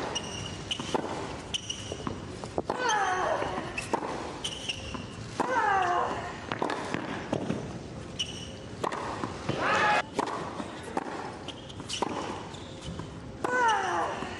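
Hard-court tennis being played: sharp racket strikes on the ball, a player's falling grunt on four of the shots, and short high squeaks from shoes on the court.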